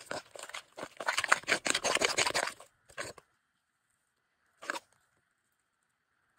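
A spatula stirring and folding thick ricotta batter in a bowl: rapid scraping strokes for about two and a half seconds, then two short strokes, one about three seconds in and one near five seconds.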